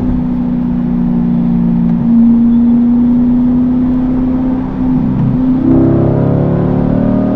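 2020 Chevrolet C8 Corvette's 6.2-litre V8 running through an aftermarket exhaust, holding a steady note under way. About five seconds in it dips briefly, then the note climbs again, fuller, as the car accelerates.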